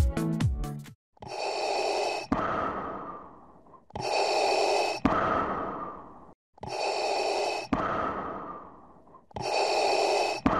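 Electronic dance music cuts off about a second in. It is followed by a looped sound effect under the title animation: four rushes of noise, each about a second long, ending in a click and a fading tail, repeating about every two and a half seconds.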